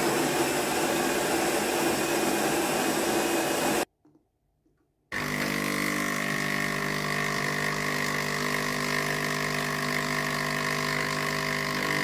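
Jura Impressa C60 bean-to-cup coffee machine grinding beans for about four seconds, then, after a pause of about a second, its pump hums steadily while espresso runs from the spout.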